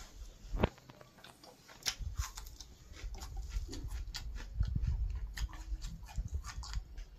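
Eating by hand: chewing and mouth clicks, with fingers tearing roti and picking chicken curry from a steel plate, making many short clicks and soft low thumps.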